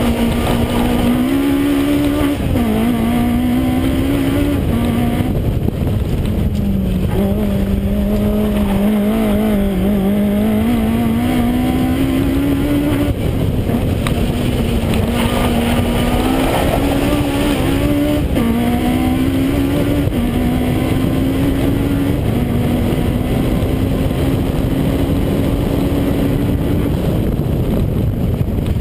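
Toyota Starlet KP61 rally car's engine driven hard on a stage. Its note repeatedly climbs under throttle and drops back at gear changes and lifts, over steady wind and road noise.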